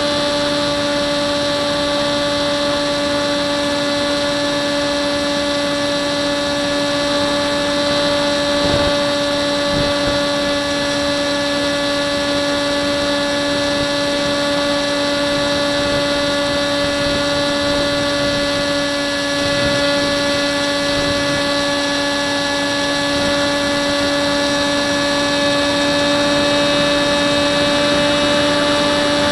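Hubsan Spyhawk RC plane's electric motor and propeller whining at a steady pitch, picked up by the onboard camera, with wind noise underneath.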